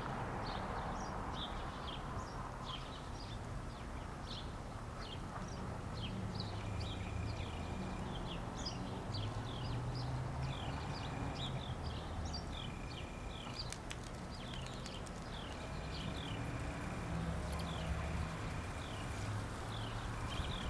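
Small birds chirping, many short falling chirps a few each second in an irregular chatter, over a steady low outdoor rumble.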